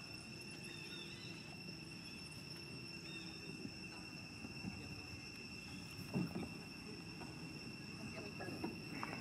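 Steady high-pitched drone of insects, holding one pitch throughout, with faint scattered low sounds and a brief louder low sound about six seconds in.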